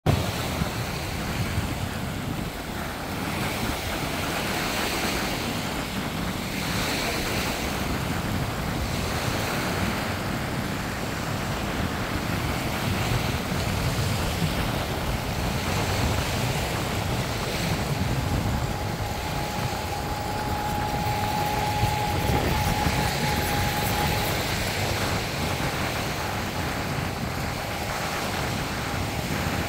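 Small waves washing up and drawing back on a sandy beach, with heavy wind rumble on the microphone. A thin steady tone sounds for several seconds in the second half.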